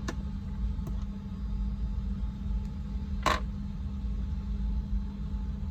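Small handling clicks as a mechanical keyboard switch is worked out of its hot-swap socket: a couple of faint ticks and one sharper click about three seconds in, over a steady low hum.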